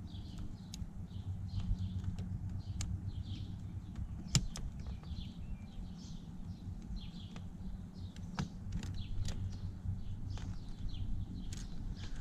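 Birds chirping over and over in the background, over a steady low hum, with a few sharp clicks from plastic connector parts and pins being worked with a small screwdriver, the loudest about a third of the way in.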